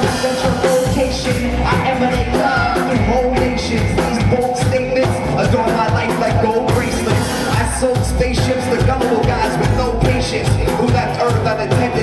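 Live band playing at full volume: drum kit, upright bass and guitar, with a vocalist singing into a hand-held microphone over a steady drum beat.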